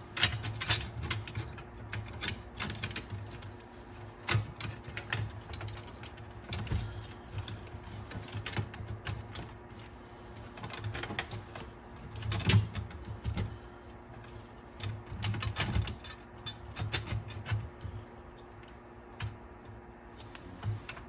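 Irregular clicks, taps and dull thuds of a cassette deck's tape transport mechanism being handled and fitted into place.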